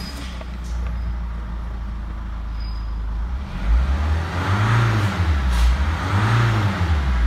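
Mitsubishi Carisma's 1.9-litre four-cylinder turbodiesel (Renault F9Q) idling steadily, heard from inside the cabin, then revved twice, each rev rising and dropping back to idle.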